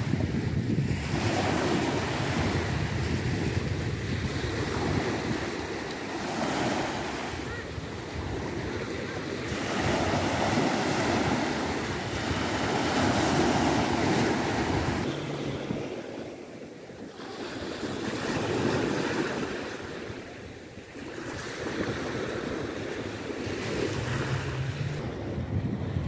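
Small Black Sea waves breaking and washing up a sand-and-shell beach, the surf swelling and fading every few seconds, with wind buffeting the microphone.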